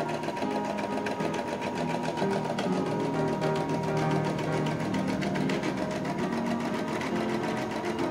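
CNY e960 portable computerized embroidery machine running, its needle stitching at a fast, even rate as it sews the black-thread part of the design.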